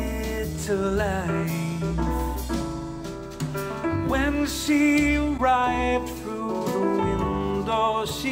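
A song with singing over guitar and bass, played through JBL 305P MKII studio monitors and picked up by a microphone in the room; near the end it switches to the JBL 306P MKII monitors.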